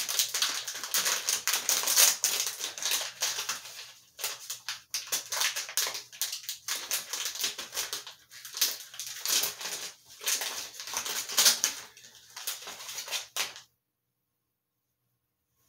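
Clear plastic cookie packaging crinkling and crackling in the hands as it is pulled open and the cookie is taken out of its plastic tray. The crackling is dense and irregular, and it cuts off abruptly near the end.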